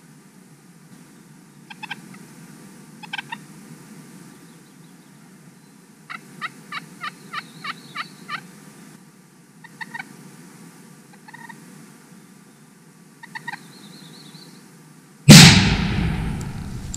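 Merriam's wild turkeys calling and gobbling in short calls, including a run of about eight quick, evenly spaced notes. About fifteen seconds in, a single shotgun blast goes off close by, by far the loudest sound, and echoes away.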